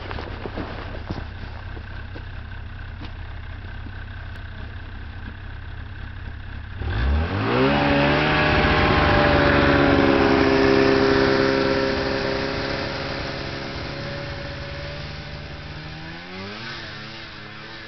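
A low steady rumble, then a snowmobile engine revs up about seven seconds in, its pitch climbing and then holding steady. It is loudest a few seconds later and slowly fades, with a brief rise in pitch near the end.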